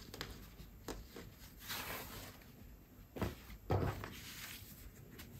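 Silk fabric pieces rustling and sliding as they are laid out and smoothed by hand on a cutting mat, with two soft thumps on the table a little after three seconds in, the loudest sounds.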